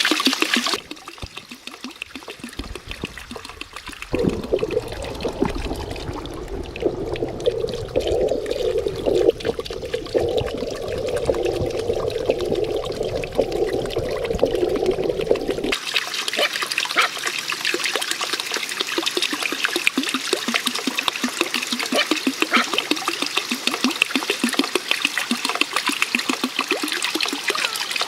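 Water pouring and trickling in a few separate stretches: a fuller, lower gush from about four seconds in, then a lighter, splashing trickle from about halfway on.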